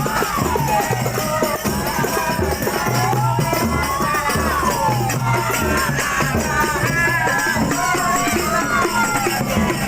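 Genjring procession music: frame drums with jingles beating a steady rhythm under voices, with a wailing tone that rises and falls about every four seconds.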